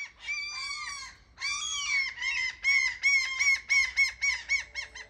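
Herring gull giving its long call: two long drawn-out wails, then a fast run of short yelping notes at about five a second that trails off near the end.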